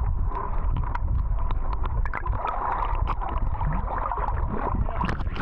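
Wind buffeting the microphone and water sloshing around a small boat, with scattered small clicks and knocks.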